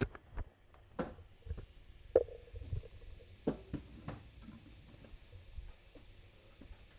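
Soft handling noise from an electric guitar plugged into a tube amp: scattered light clicks and knocks with a faint low hum, and a string note ringing faintly for a moment about two seconds in.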